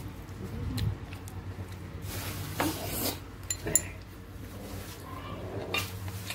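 Small drinking glasses and dishes clinking and knocking during a meal, the sharpest clink with a brief ring a little under four seconds in.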